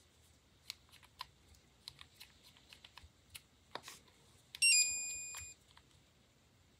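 Light plastic clicks and taps as a gel polish bottle is handled. About two-thirds of the way in, a UV/LED nail lamp beeps once: a short rising chirp into a steady electronic tone lasting about a second, as its 40-second curing timer starts.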